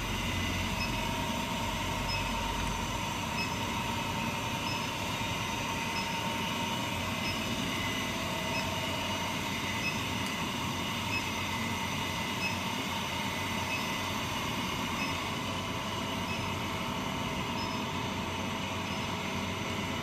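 Small induction melting furnace running at power to heat a glowing crucible: an even mechanical hum and whine with a few thin steady tones and faint regular ticks.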